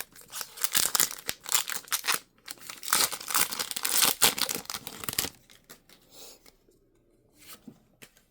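Foil wrapper of a Pokémon card booster pack being torn open and crinkled for about five seconds, then stopping, with only a few faint rustles after.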